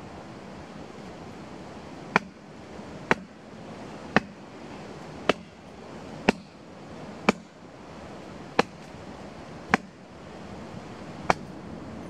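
A small hatchet striking a rotting tree stump: nine sharp, short blows roughly once a second, starting about two seconds in, over a steady background hiss.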